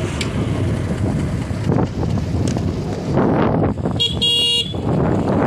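Wind buffeting the microphone and road noise from a moving motorcycle, with a short vehicle horn toot about four seconds in.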